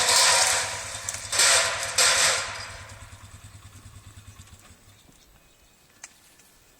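A dead tree crashing down, with loud rushing bursts in the first two and a half seconds that fade out over the next two. Under it a small engine idles with a steady low hum until it stops about five seconds in.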